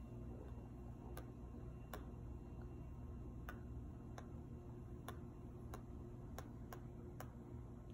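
Light, irregular clicks of a pencil tip tapping on a whiteboard, about one every half second to a second, over a steady low hum.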